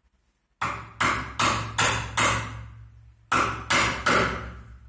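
Mallet striking the handle of a chisel, driving it into a wooden table leg to chop a mortise. Eight sharp knocks at about two to three a second: five in a row, then after a short pause, three more.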